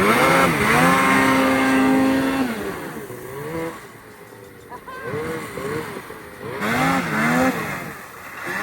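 Ski-Doo mountain snowmobile's two-stroke engine revving as it climbs and manoeuvres in deep snow: the pitch rises and holds for about two seconds, drops off near three seconds, runs lower and quieter for a few seconds, then revs up again near the end.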